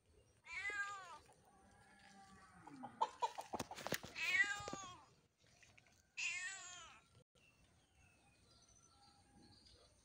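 A cat meowing three times, each meow a short rise-and-fall of under a second, with a few sharp clicks just before the second meow.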